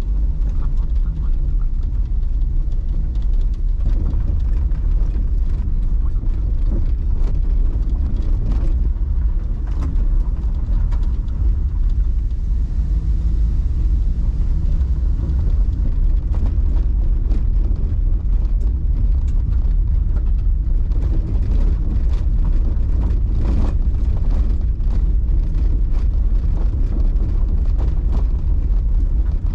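Daihatsu Tanto kei car being driven: a steady, loud low rumble of road and engine noise, with frequent small knocks and rattles from bumps.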